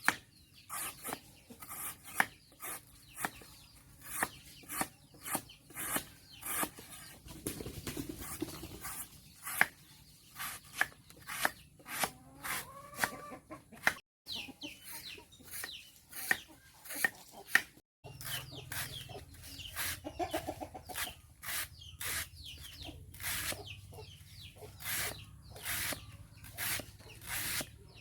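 A flock of chickens clucking now and then over a steady run of short sharp taps, several a second, typical of beaks pecking at feed. The sound cuts out briefly twice.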